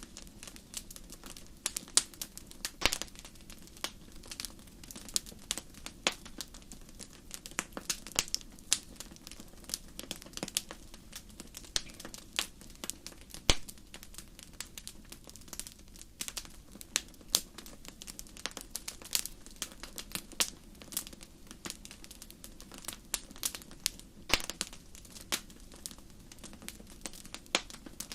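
Wood fire crackling: irregular sharp pops and snaps, several a second, over a faint steady low hum, with one louder pop about halfway through.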